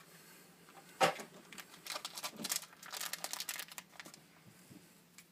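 Plastic wrapping and packaging of a sealed trading card box crinkling and tearing as it is opened, with a sharp rip about a second in and then irregular crackling.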